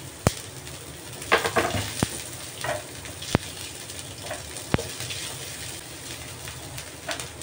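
Freshly added chopped red onion and garlic sizzling in hot oil in a nonstick frying pan, stirred with a spatula that scrapes and taps sharply against the pan about five times.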